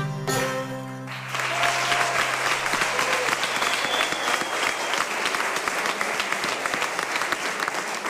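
A Greek folk band's last held note stops about a second in, and a studio audience breaks into steady applause.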